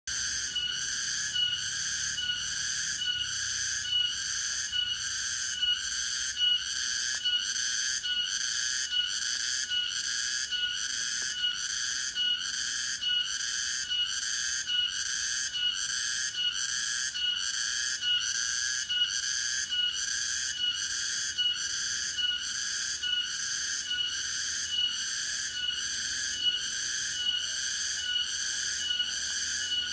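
Tonggeret cicada calling: a high, buzzing song that pulses in a steady rhythm, a little under two pulses a second, without a break.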